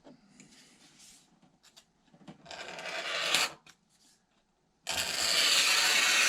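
The back of an X-Acto blade scraping across a Formica sheet to score a groove. Faint scratching first, then two scraping strokes, the second longer and louder, starting near the end.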